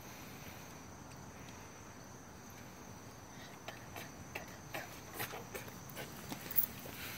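Faint steady high-pitched insect chirring from crickets. From about halfway through, a series of light, sharp clicks and taps.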